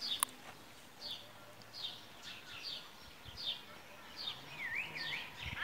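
Small birds chirping: a run of short, high, downward-sweeping chirps about every half second, with two lower swooping notes near the end. A single sharp click comes just after the start.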